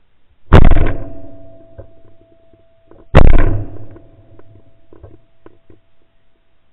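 Two shots from a Beretta 687 over-under shotgun, about two and a half seconds apart, each dying away over about a second. Recorded right on the gun by a barrel-mounted camera, so both blasts hit the top of the recording.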